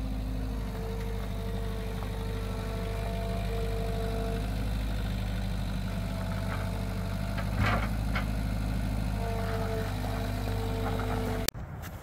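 New Holland skid steer loader's engine running steadily, with a hydraulic whine that comes and goes as the loader arms work a cedar log. A brief clunk about two-thirds of the way through, and the sound drops off suddenly near the end.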